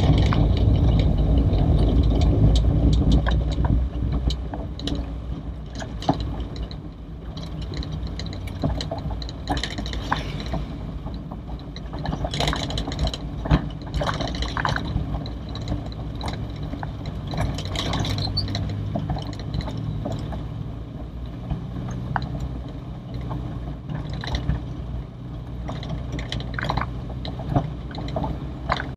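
Toyota Corolla DX driving along a rough village road, heard from inside the cabin: a steady low engine and road rumble with many scattered knocks and rattles, louder for the first few seconds.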